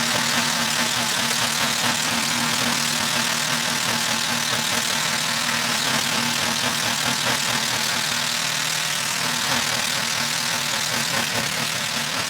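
Gas snowblower engine running steadily, with a constant low drone under a broad rushing noise.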